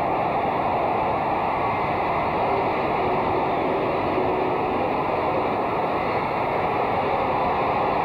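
Steady crowd noise of a baseball stadium crowd, an even wash of many voices with no single call standing out.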